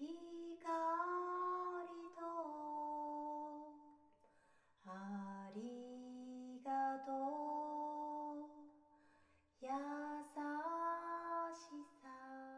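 A woman singing slowly in three long phrases of held notes, with short pauses between them.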